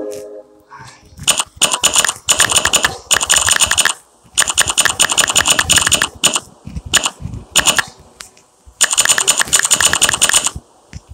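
Typing on a smartphone's on-screen keyboard: rapid key-press clicks in several quick runs with short pauses between them.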